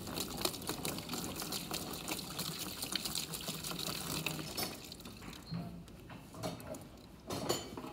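Denatured alcohol poured from a metal can into a plastic cooler, a rapid splashing pour that stops about five seconds in. A couple of light knocks follow.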